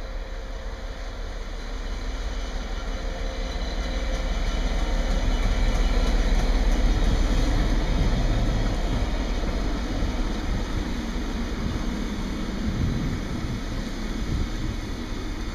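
Class 66 diesel locomotive's EMD two-stroke V12 engine passing, growing louder to a peak about halfway through, followed by the steady rumble of a long train of container wagons rolling along the rails.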